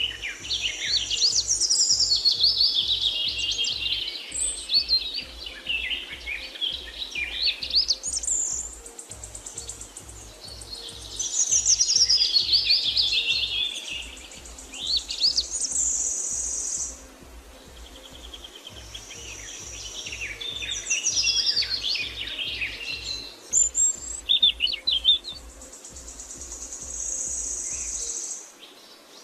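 Songbirds chirping and singing in busy phrases with short lulls, over a soft, low, pulsing music bed.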